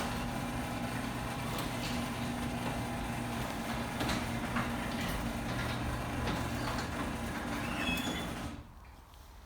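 Garage door opener running, its motor humming steadily with a few light clicks as it drives the door, then stopping about a second before the end.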